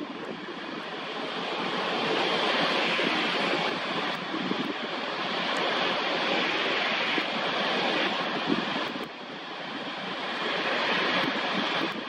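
Jet airliner landing: the two turbofan engines of an Embraer E-Jet give a steady rushing noise. It swells as the jet comes in low and touches down, eases off about nine seconds in, then rises again as the jet rolls out along the runway.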